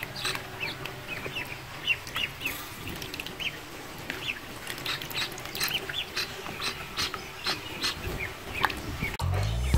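A group of domestic ducklings peeping, many short high calls overlapping, with scattered light clicks and taps. Music with a low beat comes in just before the end.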